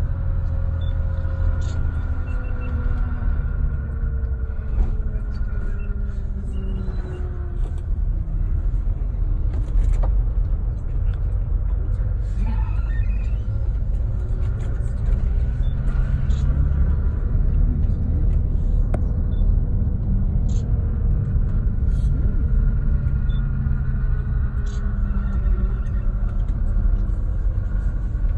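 Engine and tyre rumble heard from inside a moving road vehicle, with a faint engine tone that slowly falls and then rises again as the speed changes.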